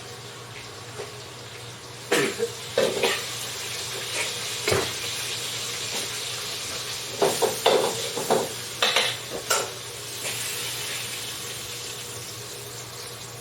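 Kitchen dishes and utensils clinking and knocking several times over a steady hiss.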